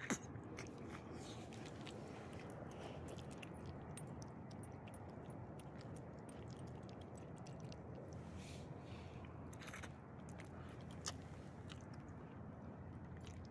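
An old small dog licking and chewing soft food from a person's hand, with many small clicks from its mouth and one sharper click right at the start.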